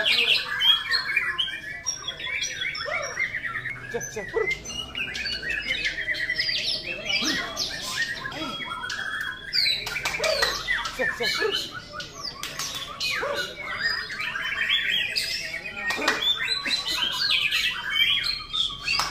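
Several caged white-rumped shamas (murai batu) singing at once, a dense, unbroken mix of whistles, trills and chirps.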